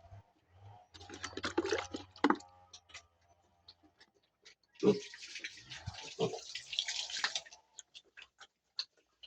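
Pigs eating: wet smacking and slurping in two spells, one about a second in and a longer one near the middle, with scattered clicks in between.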